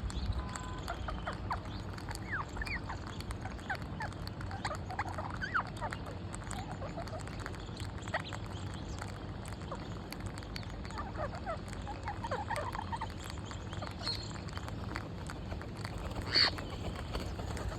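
Parrots chirping and chattering in short, scattered calls and quick up-and-down whistles over a low steady hum, with one sharper, louder call near the end.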